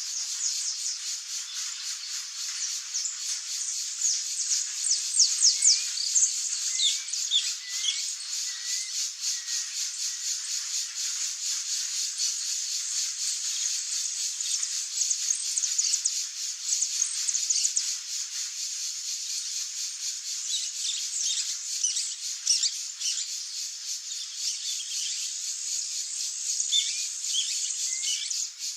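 Saffron finches singing: quick runs of sharp, high chirping notes, thickest about 3 to 7 seconds in and again around 21 to 23 seconds in, with short rising notes scattered between. Behind them runs a steady, high, pulsing buzz.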